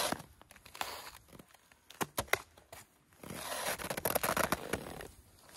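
Gear being handled at the waist: a few sharp clicks about two seconds in, then rustling and scraping for about a second and a half.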